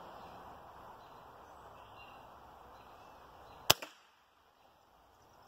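A single shot from a Hatsan Invader Auto, a .25-calibre pre-charged pneumatic semi-automatic air rifle: one sharp crack about two-thirds of the way in, followed a moment later by a fainter knock.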